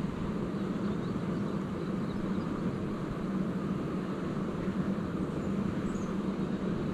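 Steady rushing noise of flowing water, with a low hum underneath.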